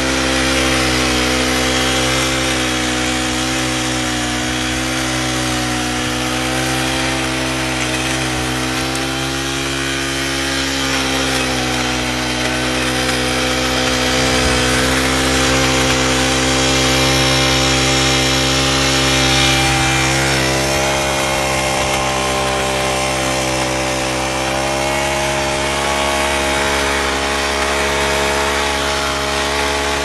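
Motorized hoe running steadily, its pitch wavering slightly, while its rotating head churns through soil around the plants.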